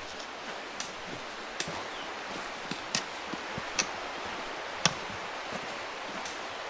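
A hiker's footsteps on a rocky trail: sharp clicks of steps on stone about once a second, over a steady background hiss.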